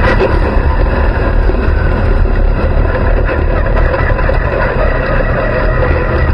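Dirt-track race car's engine running loud and steady, heard from inside the open cockpit, with heavy wind and rumble on the microphone.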